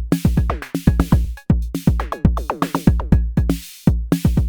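Arturia DrumBrute Impact analog drum machine playing a busy sequenced beat: kick drum, quick drum hits that sweep down in pitch, and hi-hat and cymbal hiss. The random knob is turned up, scrambling the pattern into a fill-like, irregular rhythm.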